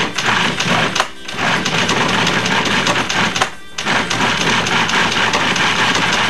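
Food processor motor running with chicken breast in the bowl, in three runs with two short pauses, grinding the meat to a coarse mix.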